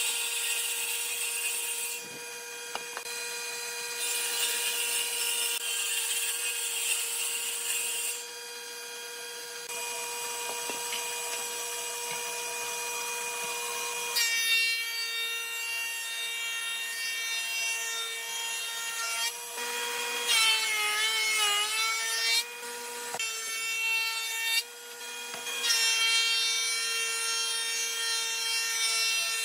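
Electric woodworking power tool running and working wood. The motor hum changes in abrupt steps between clips, and about two-thirds through its pitch sags and recovers as it slows under load in the cut.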